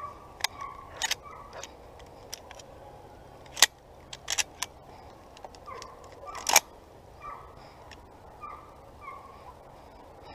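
Distant hunting hounds giving short yelping calls every half second or so, over sharp clicks and knocks of shotgun and gear handling close to the microphone; the two loudest knocks come about three and a half and six and a half seconds in.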